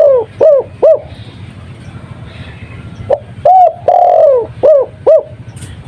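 Spotted dove (tekukur) cooing in the Madura 'kuk 2' style: the start holds the end of one phrase, a long falling coo and two short 'kuk' notes. A full phrase comes about three seconds in: a short note, a rising-falling note, a long drawn-out falling coo, then two short 'kuk' notes.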